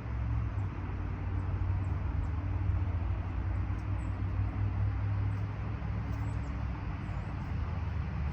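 A steady low mechanical drone.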